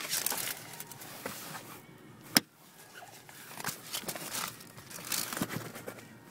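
Handling noise of a hand and camera working around a car's sun visor: light rustling and scattered small clicks, with one sharp click about two and a half seconds in.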